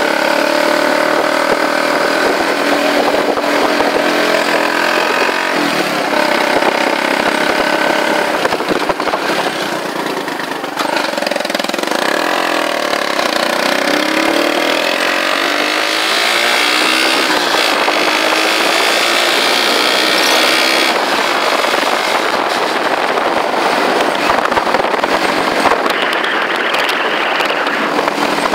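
Motorcycle engine running under way, with a steady rush of wind and road noise. The engine note falls and the sound dips about ten seconds in, then rises again as the bike speeds up.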